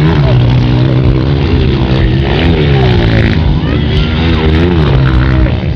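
A Honda CRF230F dirt bike's single-cylinder four-stroke engine running hard, its pitch rising and falling several times as the throttle is opened and closed.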